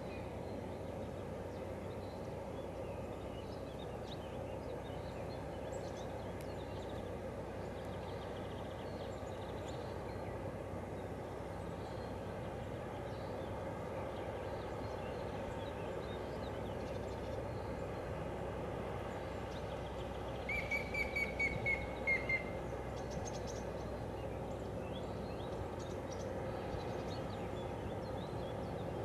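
Steady, distant drone of a passing river tanker vessel's engine carrying across calm water, with birds calling faintly; about two-thirds of the way through, a bird gives a quick run of about eight high chirps.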